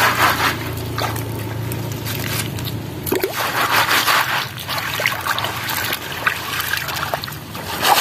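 Water sloshing and trickling out through a woven bamboo sieve tray as it is swirled and lifted in shallow stream water, the small freshwater clams (remis) and gravel shifting on the weave. The sound comes and goes in uneven splashes rather than a steady flow.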